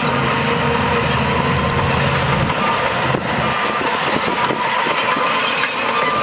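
Heavy diesel earthmoving machinery running hard, a deep engine drone that eases off about two and a half seconds in. Short repeated beeps, like a reversing alarm, come in near the end.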